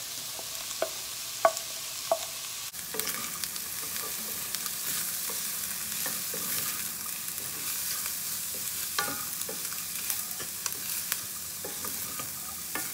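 Shredded chicken, onion and chopped celery sizzling in oil in a stainless steel wok, stirred with a wooden spatula that knocks against the pan now and then.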